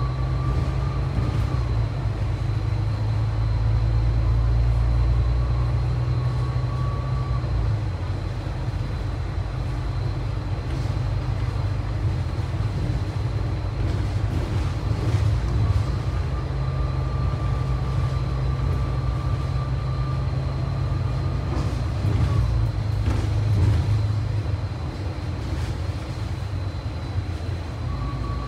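Bus running on the road, heard from inside: a steady low rumble of engine and road, a thin whine that comes and goes several times, and a few scattered knocks.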